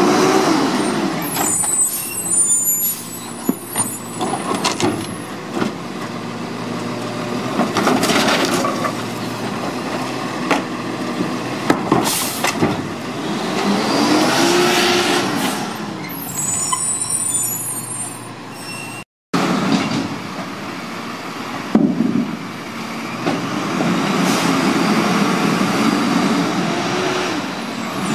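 Lodal garbage truck's diesel engine running, revving up and falling back several times as the truck works and moves off, with short high brake squeals twice. The sound drops out briefly about two-thirds of the way through, then another garbage truck is heard running as it approaches.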